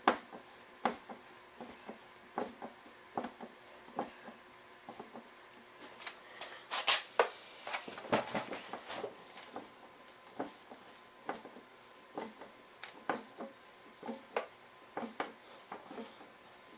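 Irregular clicks and taps from hands working on a Stihl backpack blower's backplate frame while fitting the shoulder straps and pads, with a louder scraping rustle about seven seconds in.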